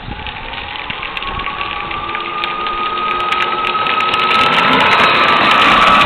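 Power Wheels ride-on toy car, upgraded from 12 to 18 volts, driving with its electric drive motors whining and its plastic wheels rolling on asphalt. The whine rises a little in pitch and then holds steady, and the whole sound grows louder as the car approaches.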